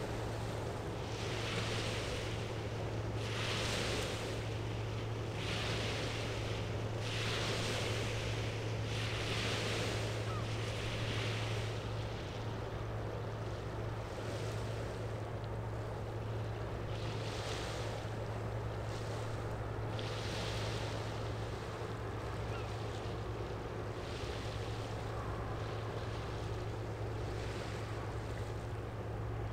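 Small waves washing against the riverbank in swells every second or two, more often in the first half, over the steady low drone of a passing general cargo ship.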